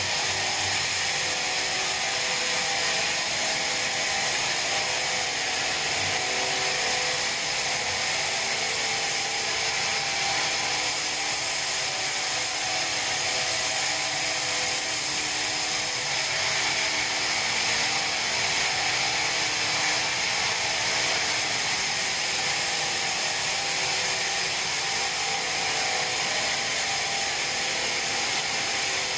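Band sawmill cutting through a pine log: a steady, high-pitched machine whine with no breaks.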